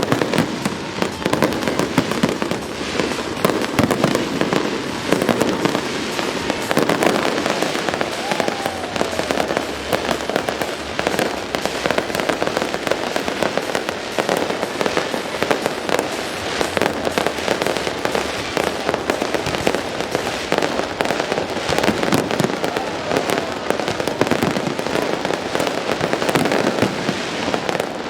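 Fireworks display: a dense, continuous stream of bangs and crackles, many shells bursting close together with no pause.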